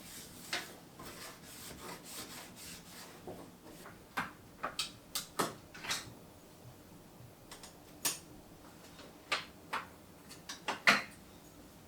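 Kitchen cleaning and handling sounds: soft rubbing at first, then a string of light clicks and knocks as items are moved and set down, the sharpest knock near the end.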